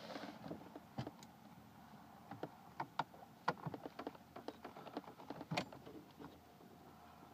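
Irregular light clicks and taps of a hand tool and fittings at the back of a steering wheel as a Torx screw holding the driver's airbag is worked loose.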